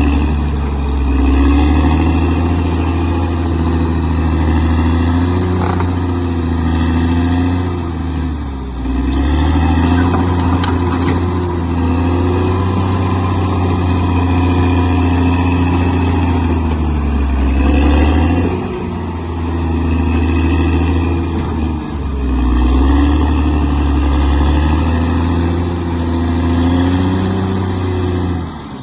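Bulldozer's diesel engine running hard, its note sagging and picking back up a few times as the load changes.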